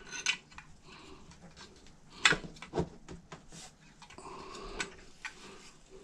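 Light metallic clicks and clinks of an open-ended 18 mm spanner on the front axle nuts of a Xiaomi M365 Pro scooter fork, a few separate sharp taps scattered through, as the already-slackened nuts are undone.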